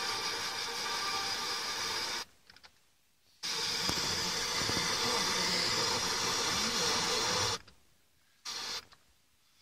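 Pioneer car stereo's FM tuner giving the hiss and noise of weak reception around 89.8–89.9 MHz. The sound cuts out abruptly for about a second just after two seconds in, and twice more near the end, as the frequency is stepped.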